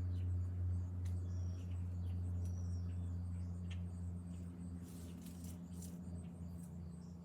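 A steady low machine hum, with faint high-pitched bird chirps and a few light clicks and rustles over it.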